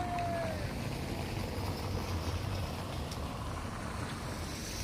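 Steady outdoor background noise: a low rumble under an even hiss, with a thin tone that fades out in the first second.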